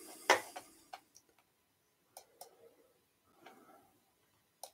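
Scattered clicks and light knocks from handling things on a wooden lectern and a computer mouse: a sharp knock about a third of a second in, a few softer clicks after it, and a quick pair of clicks near the end.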